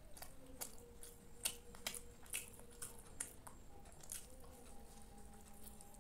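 Close-up eating sounds of a man biting into and chewing malpua, a syrup-soaked fried pancake: wet smacks and clicks at irregular intervals.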